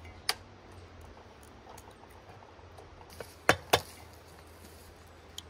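Eggs being cracked on the rim of a metal mixing bowl: a light tap just after the start, then two sharp taps in quick succession about three and a half seconds in.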